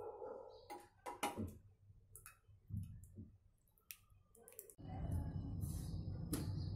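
A metal ladle clicking and knocking against a pressure cooker and a serving bowl as thick dal is ladled out, a few separate taps. About two-thirds in, this gives way to a steady low background hum.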